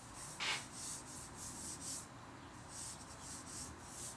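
Drawing strokes scratching across paper: a run of short, quick strokes with a brief pause about halfway through.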